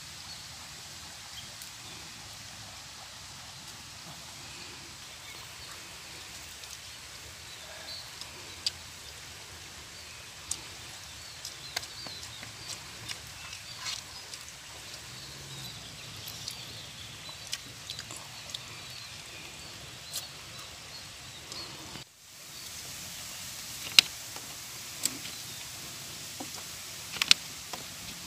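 Steady rush of a shallow rocky stream, with scattered sharp clicks and smacks from people eating with their hands close by. The loudest two clicks come near the end.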